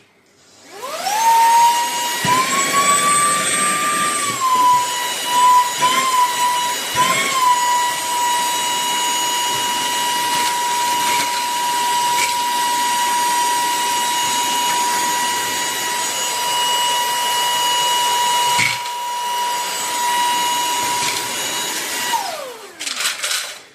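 Cordless handheld car vacuum switched on. Its high-revving motor spins up within a second to a steady high-pitched whine, with a few brief wavers and a sharp click about three-quarters of the way through, then is switched off and winds down near the end. It is a suction test picking up small iron nuts, a coin and paper clips.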